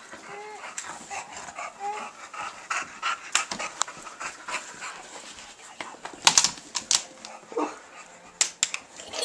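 A small white dog panting in quick, uneven breaths, with a few short whimpers in the first two seconds and several sharp clicks and knocks about six to nine seconds in.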